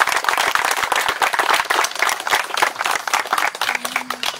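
A crowd of guests applauding, many hands clapping at once, thinning out and dying away near the end.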